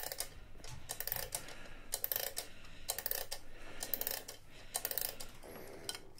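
Dry mechanical clicking in quick, irregular clusters, about one cluster a second, from something being turned by hand.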